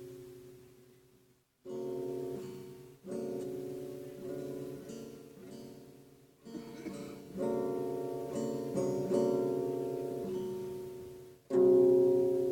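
Guitar strummed slowly, one chord at a time, each chord left to ring and fade. There is a short silence after the first chord and the loudest chord comes near the end.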